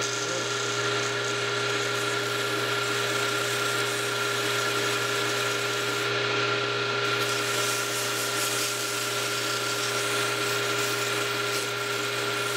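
A small lathe running steadily with a constant hum and whine, while sandpaper held by hand rubs against a small wooden wheel spinning on it, sanding it smooth.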